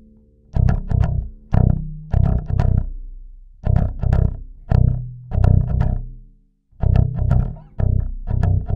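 Warwick Corvette Standard five-string electric bass with a bubinga body, German-made, played with the fingers. It plays short phrases of a few notes, each note fading after it is plucked, with a brief break a little past the middle.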